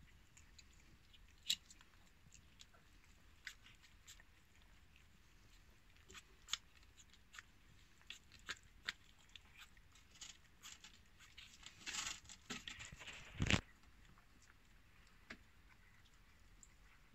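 A cat and kitten eating soft sausage pieces from a plastic plate: scattered wet clicks and smacks of chewing. About three-quarters of the way through comes a denser run of clicks and scrapes, ending in a single louder knock.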